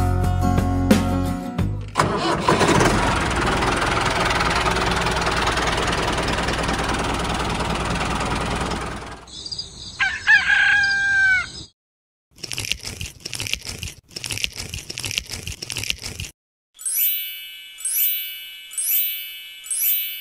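Music, then a steady hiss for about seven seconds, then a rooster crowing as a sound effect about halfway through. Near the end comes a string of ringing, bell-like dings, roughly one a second, each fading away.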